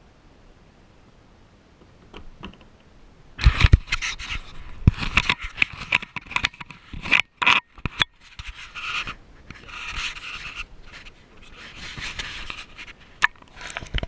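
Handling noise on a GoPro camera: uneven scraping and rubbing right against its case, starting about three seconds in and going on in irregular strokes.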